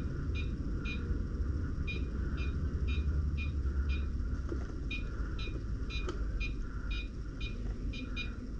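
Repeated short high electronic beeps, about two a second and coming faster near the end, over a steady low rumble.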